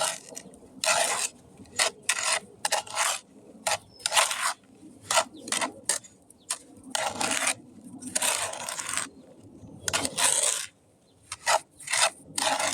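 Concrete resurfacing mix being stirred, a mixing tool scraping through the wet mix and against its container in a run of irregular strokes, some short and some about a second long.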